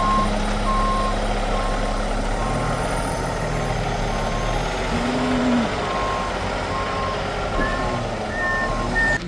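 Garbage truck's backup alarm beeping about once a second over its running diesel engine, as the McNeilus front loader reverses. The beeping stops about seven seconds in, and a higher-pitched beep sounds three times near the end.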